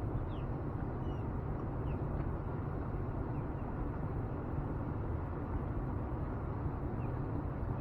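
Steady low rumble of outdoor background noise, with a few short, faint bird chirps scattered through it.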